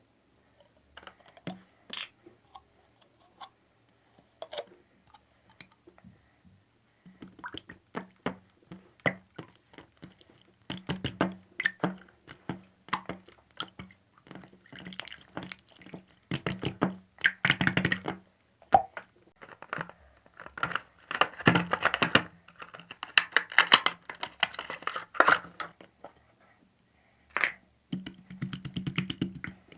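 Slime being squeezed and poked by hand, making rapid sticky clicks, pops and crackles: sparse at first, then dense and louder from about seven seconds in.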